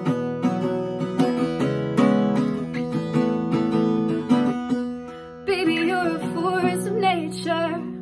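Acoustic guitar strummed in chords. About five and a half seconds in, a woman's voice joins, singing a wavering held line over the guitar.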